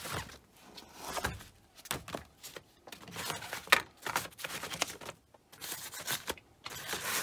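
Paper booklets and manuals rustling and flapping as they are handled and leafed through, with irregular light clicks and knocks of handling.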